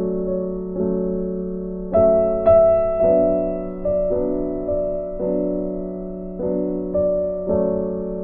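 Slow, gentle keyboard music: sustained piano chords, with a new chord or note struck every half second to a second and each one fading away.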